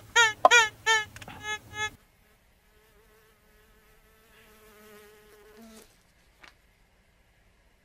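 Metal detector signalling a target: a rapid run of loud, buzzy tones, each dropping in pitch, for about two seconds. A fainter steady wavering buzz follows for about three seconds, then a short click.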